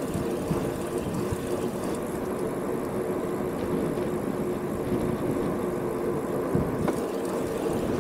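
Steady rolling noise of a touring bicycle ridden along a paved road, with a faint even hum.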